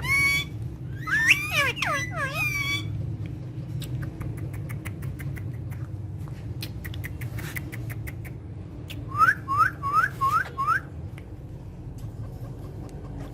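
Pet parrots calling: a few squawking, gliding calls at the start, scattered small clicks, then about two-thirds of the way through a run of five short rising whistles, over a steady low hum.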